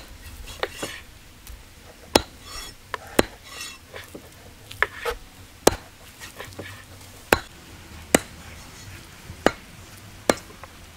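Large knife chopping boneless mutton on a wooden tree-stump block: sharp, irregular knocks of the blade striking the wood, roughly one a second.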